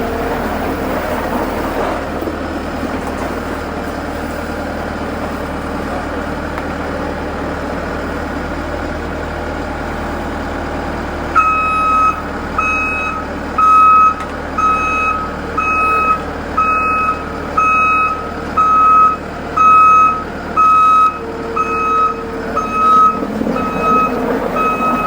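A vehicle's engine running steadily, joined about halfway through by a backup alarm beeping evenly, a little more than once a second.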